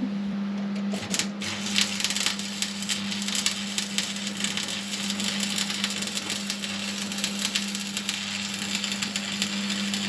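Stick (arc) welding: the electrode rod's arc crackles and sizzles steadily, starting about a second in and burning until the rod is used up, over a steady low hum.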